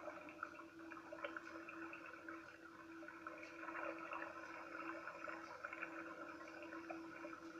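Steady hum of a kayak motor, pulsing slightly, over water splashing and lapping along the hull as the kayak moves.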